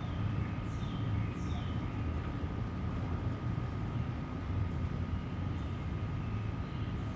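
A steady low mechanical rumble with a faint, constant high tone running through it. A few short, falling chirps come near the start.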